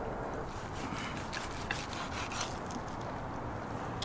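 Quiet eating sounds: roasted pheasant meat being pulled apart and chewed, with a few soft clicks and rubs in the first half, over a steady low background rumble.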